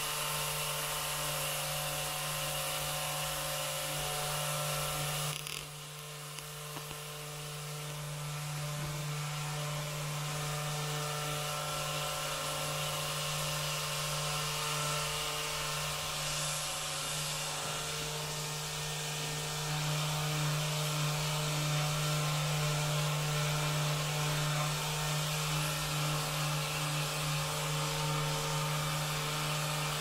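Handheld Rapid Release therapy device buzzing with a steady, very fast vibration while pressed against the neck and upper back. It dips briefly about five seconds in and grows a little louder about twenty seconds in.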